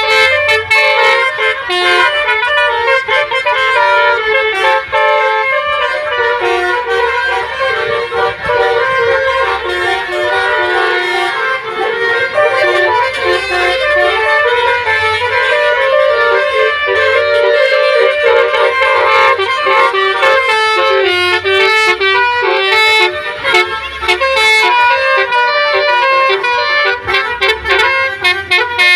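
Indonesian bus 'telolet' horn, a multi-tone musical air horn, playing a continuous melody of changing notes, with a low pulse underneath.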